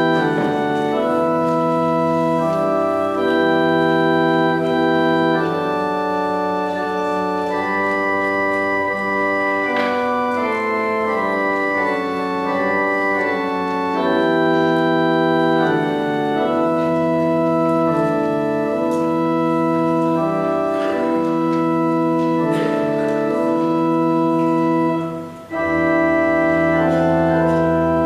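Organ playing slow, sustained chords as prayer music, the chords changing every second or two. It breaks off briefly near the end and comes back in with a low bass note held under the chords.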